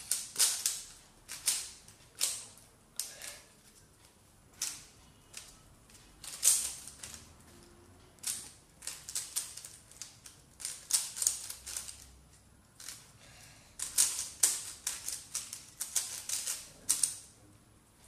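A 3x3 Rubik's cube being turned fast by hand: quick runs of plastic clicks and clacks as the layers snap round, broken by short pauses.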